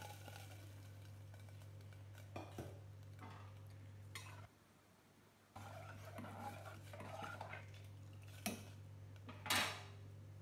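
A metal ladle stirring and scraping a liquid mix in an aluminium pressure cooker, with scattered clinks and knocks against the pot and a sharp knock near the end. A steady low hum runs underneath and breaks off for about a second midway.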